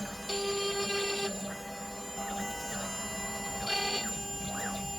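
CNC router milling the backing off a glued-in wooden inlay plug. Its motors give a set of steady whining tones that step up and down in pitch and level as the axes move, with a short rising glide near the end.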